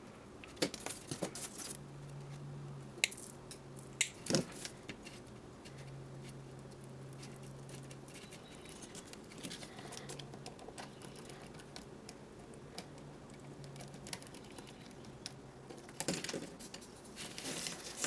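Wires, a small screwdriver and a plastic screw terminal block being handled as the wires are fitted into a relay module: faint scattered clicks and rustles, with a sharper click about four seconds in and a cluster of clicks near the end.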